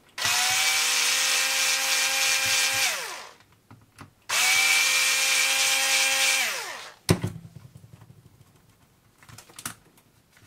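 Cordless electric screwdriver running twice for about three seconds each, driving out two small screws from an RC buggy's front axle carrier, its whine falling in pitch as it spins down at the end of each run. A sharp click follows, then a few light clicks.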